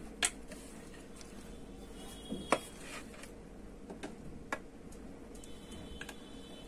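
A few separate light clicks and taps from handling a plastic LED bulb housing, the sharpest about a quarter second in and about two and a half seconds in, over a faint steady hum.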